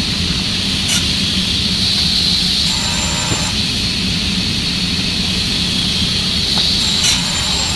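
Altendorf WA80 sliding-table panel saw and its dust extraction running with a steady, loud whine and rumble as plywood panels are fed through it.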